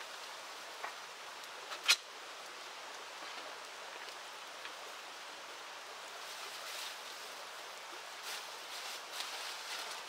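Steady rushing of river water, with one sharp click about two seconds in and scattered soft ticks and crackles in the second half.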